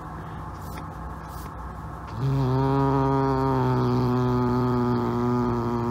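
Cat growling with a toy mouse in its mouth: one low, steady, drawn-out growl that sets in about two seconds in and keeps going.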